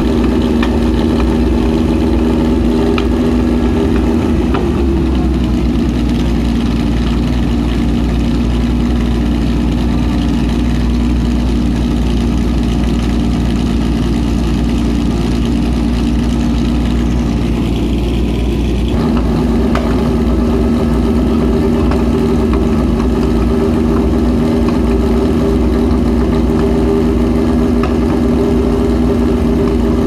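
Lancia Stratos rally car's mid-mounted Ferrari Dino V6 idling, heard close to its exhaust pipes. The note is steady, with a small change in engine speed a few seconds in and another a little over halfway through.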